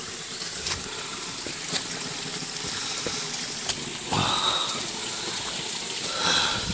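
Steady hiss of running water, like a small stream or trickle, with a few faint knocks and brief louder patches about four and six seconds in.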